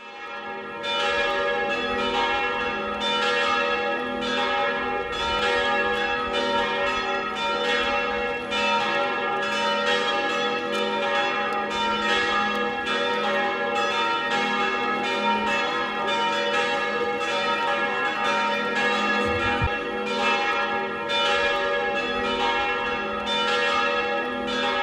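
Church bells ringing continuously, many overlapping strokes with their tones ringing on between them, fading in at the start.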